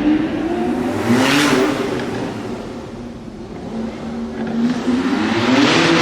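Lamborghini Aventador S's naturally aspirated V12 engine swelling twice, about four seconds apart. Each time it rises in pitch and loudness, then falls away.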